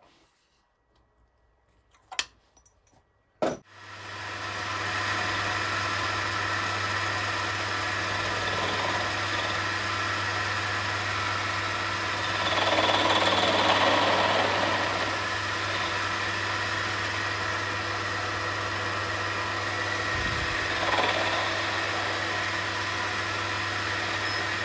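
A Myford Super 7 lathe switched on with a click about three and a half seconds in, its motor running up and then running steadily with a low mains hum. A louder hiss swells and fades between about 12 and 15 seconds and briefly again near 21 seconds, as the tool takes a light cut on the end of a steel Acme leadscrew.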